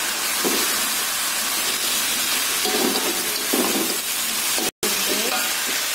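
Tempe cubes sizzling in hot oil and seasoning paste in a wok, stirred with a metal spatula that scrapes the pan now and then. The sound breaks off for an instant just under five seconds in.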